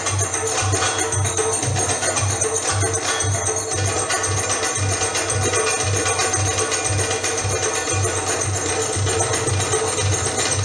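Egyptian tabla (goblet drum) solo music: a steady, driving rhythm of deep bass strokes under quick, sharp high taps, playing without a break.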